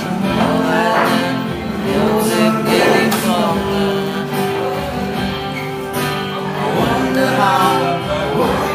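A song sung to acoustic guitar accompaniment, with sung phrases rising and falling over held guitar chords.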